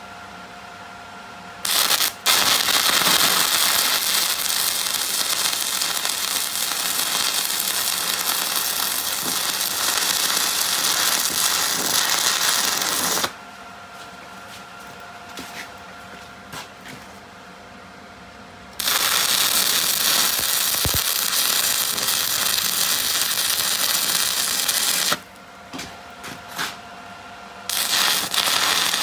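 Arc welding on steel: the welding arc runs in three long stretches, about eleven seconds, then about six, then again near the end, each a loud, steady hissing noise that starts and stops abruptly as the arc is struck and broken.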